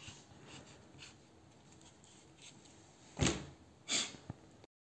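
Handling noise at a tabletop: faint rustles, then two short bumps about three and four seconds in, the first the louder. The sound then cuts off to dead silence.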